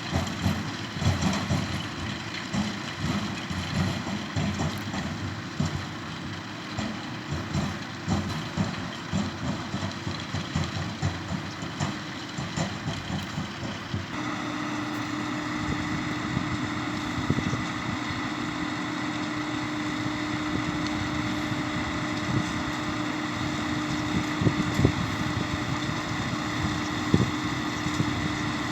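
New Holland T6 tractor running during sugar beet harvesting. The first half is an uneven, knocking rumble. About halfway through it changes suddenly to a steady hum with a held high whine.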